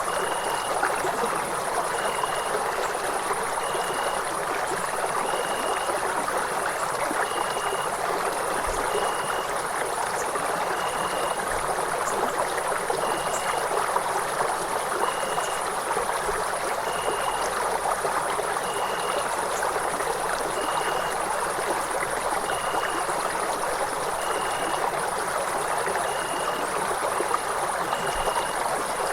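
Night ambience: the steady rush of a flowing stream, with a high insect trill running over it and a short chirp repeating about every two seconds.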